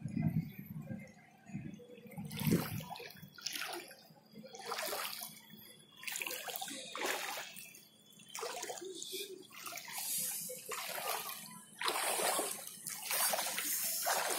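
Footsteps wading through shallow floodwater, each step a slosh and splash, roughly one a second.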